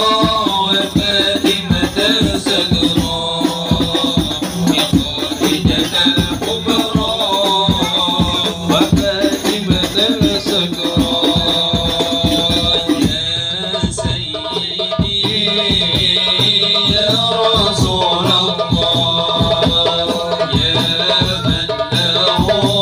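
Group of voices singing an Arabic sholawat in unison, accompanied by hand-struck frame drums and jingling percussion, heard through a PA system. The music thins briefly about thirteen seconds in, then carries on.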